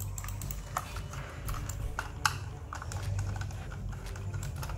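Irregular light clicks and taps of a plastic computer mouse and a small screwdriver being picked up and handled on a desk, as the screwdriver is set into the mouse's screw.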